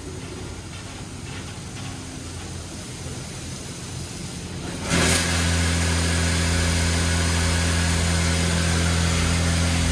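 Washworld Razor touchless car wash: about halfway through, its high-pressure pump comes on suddenly and stays on, a loud steady low hum with the hiss of water jets blasting the car. Before that only a quieter, even machine hum is heard.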